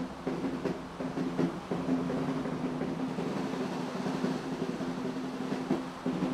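Military pipe band playing: bagpipes sounding their steady drones under the chanter tune, with frequent drum beats.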